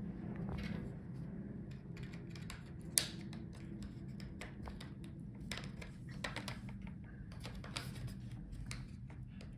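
Plastic laptop hinge cover being pressed and fitted onto the screen assembly: a run of light plastic clicks and taps, with one sharper click about three seconds in and a quick cluster of clicks in the second half.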